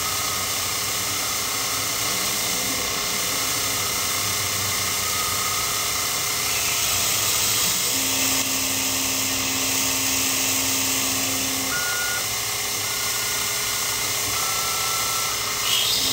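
Miniature Sherline CNC cam grinder's wheel grinding a small steel camshaft lobe under coolant: a steady hiss, on a second grinding pass. About halfway a steady low whine from the stepper-driven axes comes in and stops a few seconds later, followed by a few short higher whines.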